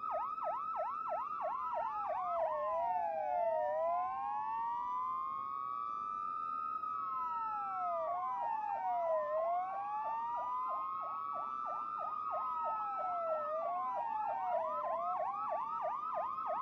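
Several police car sirens sounding together and overlapping. They switch between fast yelps, several sweeps a second, and slow rising-and-falling wails: yelps at first, wails from about two and a half seconds in, and yelps again from about eight seconds.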